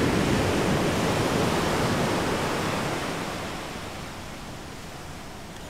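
Ocean surf: a loud, even rushing noise that fades over the last few seconds.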